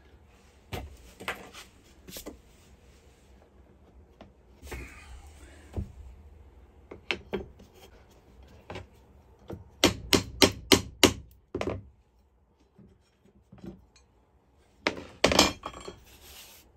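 Vinyl floor plank being knocked into place through a pull bar, with about seven sharp knocks in quick succession in the middle, about three to four a second, among scattered lighter knocks and handling sounds.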